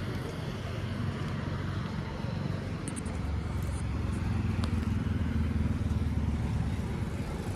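A low engine rumble running steadily, growing louder from about three seconds in, with a few faint light clicks.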